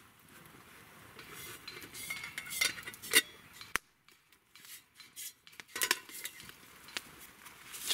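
Metal camp pot and its lid clinking and knocking as they are handled on a wood fire. It is a run of sharp clinks about two to three seconds in, then more from about five to seven seconds.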